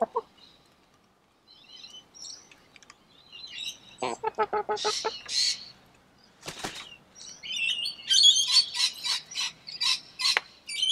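Two Isa Brown hens feeding: a quick run of clucks about four seconds in, rustling, then a string of high-pitched calls through the last few seconds.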